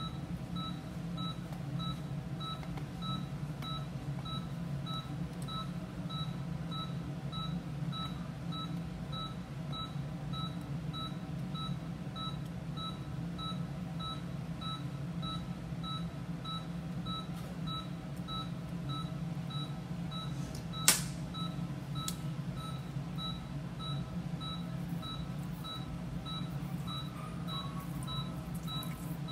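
Anaesthesia monitor beeping evenly a little over twice a second, a short two-pitched tone with each of the anaesthetised animal's pulse beats, over a steady low machine hum. One sharp click stands out about two-thirds of the way through.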